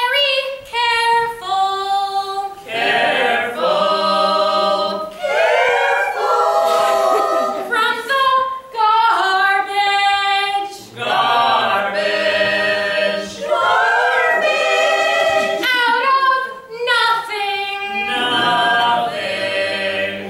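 Unaccompanied group singing, several voices together in short phrases with brief pauses between.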